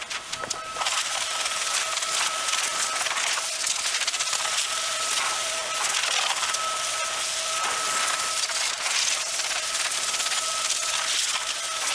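A small electric cleaning tool whining at a steady pitch, with brief drop-outs, over a continuous scrubbing hiss as a floor mat is cleaned.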